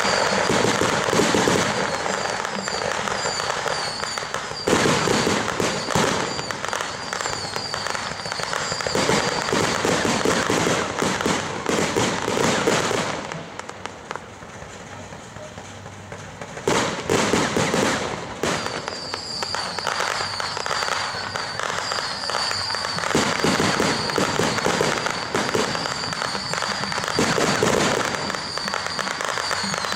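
Dense barrage of firecrackers and ground and rooftop fireworks: rapid crackling bangs with hardly a break, which thins to a quieter stretch about halfway through and then picks up again.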